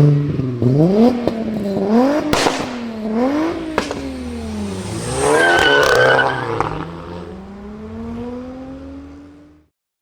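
Performance car engine revving up and down through gear changes, with sharp exhaust pops and bangs about two seconds in and again around five to seven seconds in, joined there by a brief high squeal. The engine then fades away and cuts off suddenly near the end.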